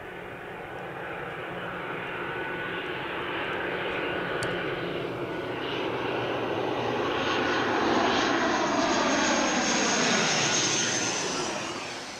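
ATR 42-600 twin-turboprop airliner on landing approach passing low overhead: its Pratt & Whitney PW127 turboprops and propellers grow steadily louder, with a high whine, and the pitch falls as it goes by. The sound peaks near the end and then drops away quickly.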